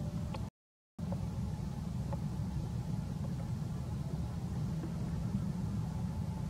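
Steady low background rumble with faint scattered ticks, cut by a brief total dropout to silence about half a second in.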